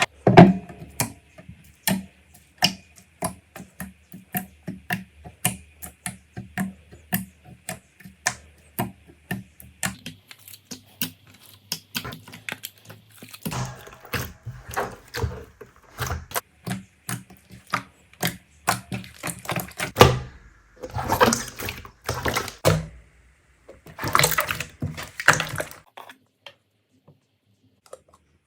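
Slime being pressed and worked by hand, giving a run of sharp clicking pops, about two or three a second, and then, from about twenty seconds in, longer crackling squishes.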